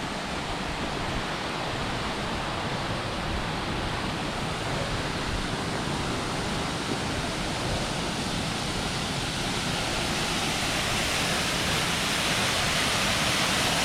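Steady rushing of a waterfall, growing slowly louder toward the end.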